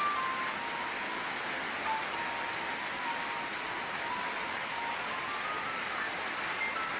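Background music: a slow melody of single held notes over a steady, rain-like hiss.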